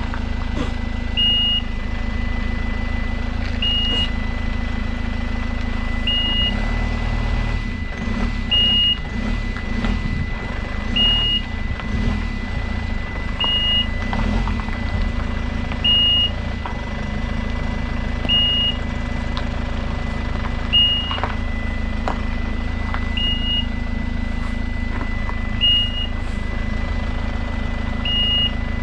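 A vehicle engine running steadily, with a short electronic beep repeating about every two and a half seconds over a steady high tone.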